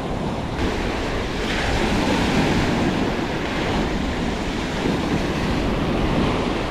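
Choppy surf washing onto a beach, with gusting wind rumbling on the microphone; the wash swells up about a second and a half in.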